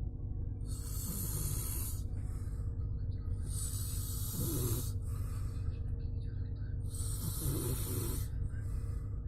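A person snoring in sleep: three slow breaths about three seconds apart, each a hissing rush of air with a short low snore in it. A steady low hum runs underneath.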